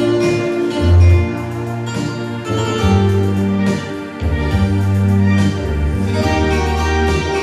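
Instrumental dance music with held low bass notes that change about every second.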